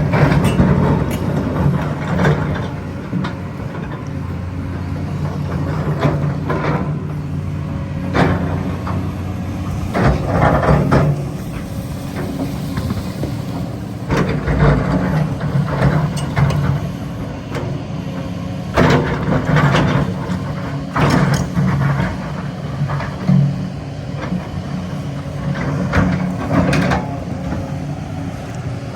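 Kobelco 380 excavator's diesel engine running steadily, swelling in load again and again as it works, with short knocks and scrapes in each louder stretch.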